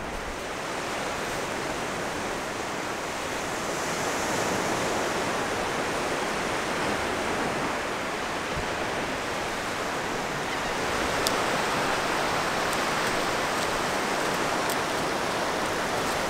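Ocean surf washing on a beach: a steady rushing that swells twice as waves come in, with a couple of faint clicks near the end.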